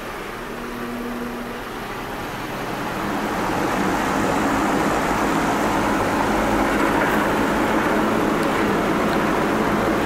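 Large floor fan spinning up over a couple of seconds, then blowing steadily, a rushing air noise over a car engine idling. The fan is supplying airflow to simulate driving down the road during an AC performance check.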